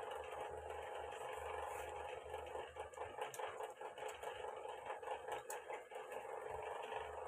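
Faint clicks and handling noise as an opened Huawei Honor smartphone and its plastic inner cover are moved about on a table, over a steady background hum.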